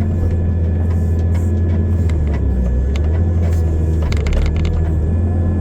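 Excavator's diesel engine running steadily with a deep hum, with a few sharp clicks and knocks, a cluster of them about four seconds in.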